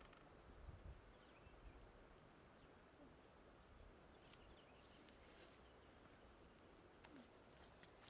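Faint, steady high-pitched insect trill, with a few soft clicks.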